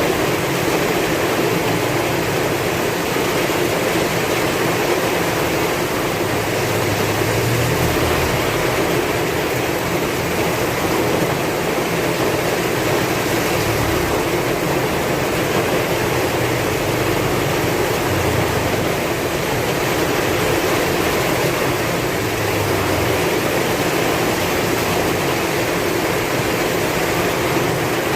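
Heavy rain pouring steadily with strong wind, an even, unbroken hiss; a low rumble swells a few times.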